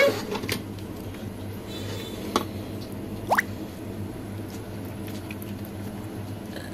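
Cooked meat in masala gravy in a pan, making soft wet squishing and dripping sounds over a steady low hum. A few light knocks come through, and there is a short rising squeak about three seconds in.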